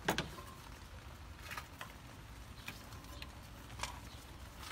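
Ignition wires and their rubber boots handled at the distributor cap by gloved hands: a quick cluster of sharp clicks at the start, then a few faint clicks and rubs spread through the rest.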